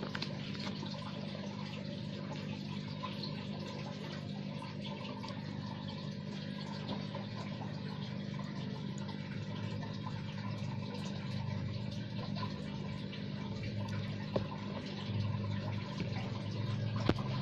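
Light water sounds from shallow water in a plastic tub over a steady low hum, with a couple of light knocks near the end as a small turtle is handled.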